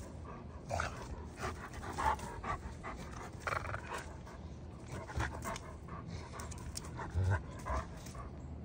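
A German shepherd and a small white dog panting as they play, in short, irregular breaths, with a low thud a little after seven seconds in.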